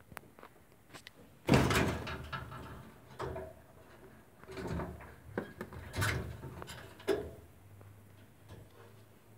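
Knocks and scuffling in a hay-lined rabbit nest box. A sharp bump comes about one and a half seconds in, followed by scattered knocks and rustles over the next few seconds.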